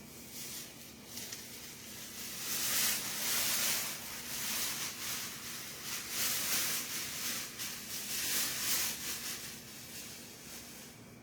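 Packaging rustling in irregular hissy bursts as a boxed step ladder is unpacked, loudest from about two seconds in until near the end.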